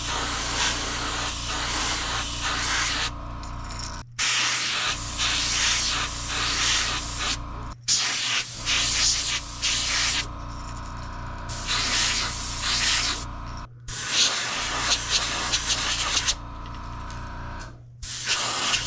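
Gravity-feed airbrush spraying paint onto a crankbait: the air-and-paint hiss comes in stretches of a few seconds, stopping briefly between passes, over a steady low hum.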